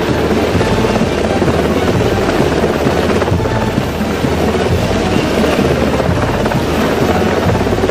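Helicopter hovering close overhead: a loud, steady rotor beat mixed with wind-like noise.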